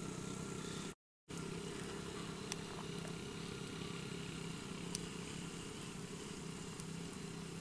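A faint, steady low mechanical hum with a few faint ticks; the sound cuts out briefly about a second in.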